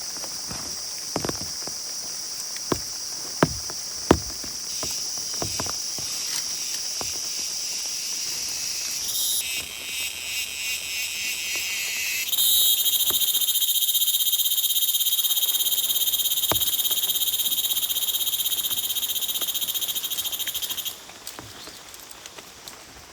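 A chorus of frogs and insects calling in high-pitched pulsing trills. It swells sharply about halfway through and drops away near the end. A few sharp knocks come in the first few seconds.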